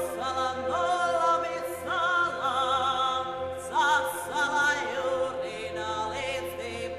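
Background music: a choir singing, the voices wavering in pitch, over a steady drone.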